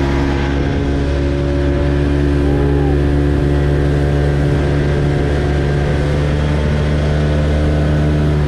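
Outboard motor on a small aluminium dinghy (tinny) running steadily at cruising speed under way, holding an even pitch throughout.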